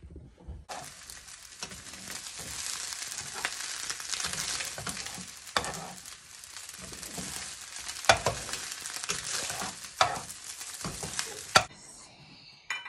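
Beaten eggs sizzling in a hot nonstick frying pan as they are stirred and scrambled with a spatula, with a few sharp knocks of the spatula against the pan. The sizzling cuts off abruptly near the end.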